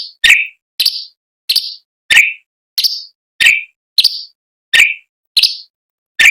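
Orange-bellied leafbird (cucak cungkok) giving a rapid series of short, sharp calls, about one and a half a second, alternating between a lower and a higher note.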